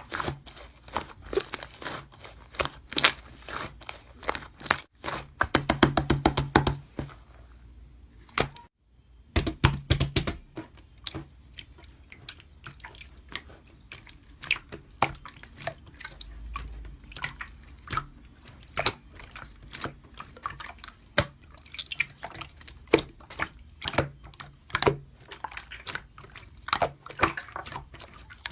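Slime being squeezed, pressed and poked by hand, giving irregular sticky clicks and small air-bubble pops, with two fast runs of pops about six and ten seconds in.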